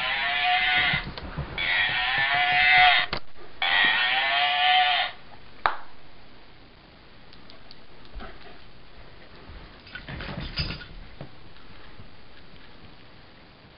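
Mini Australian Shepherd dog giving three long, wavering whines, each more than a second long, one after another. A sharp knock follows a little later, then faint scuffling of play.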